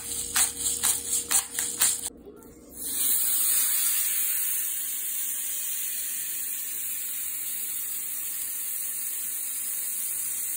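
About ten quick rustling strokes in the first two seconds, then a porterhouse steak searing in a cast-iron skillet: a steady sizzle from about three seconds in.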